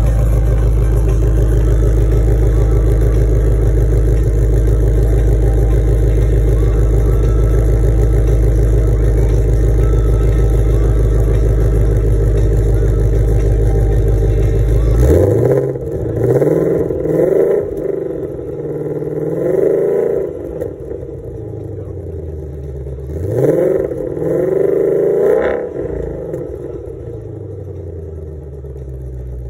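2020 Ford Mustang Shelby GT500's supercharged 5.2-litre V8 heard at its quad exhaust tips: it runs at a steady idle for about the first half, then is revved in a series of quick throttle blips, each rising sharply and dropping back, before settling to a lower idle near the end.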